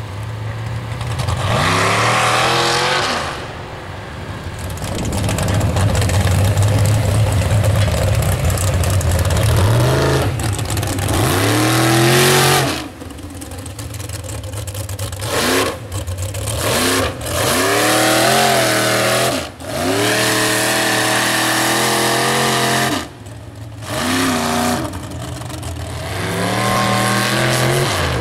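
Mud trucks' engines revving hard through a mud pit, the pitch climbing and falling again and again as the throttle is worked, with several sudden short dips in the sound.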